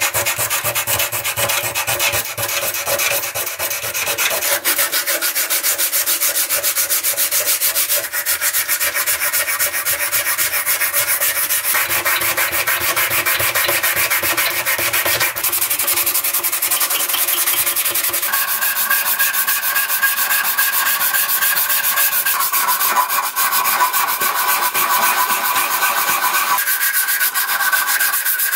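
Sandpaper rubbed by hand over a wooden screwdriver handle in rapid, continuous back-and-forth strokes. Later a strip of sandpaper is drawn shoe-shine fashion across the end of the handle, and the tone of the scraping shifts a few times.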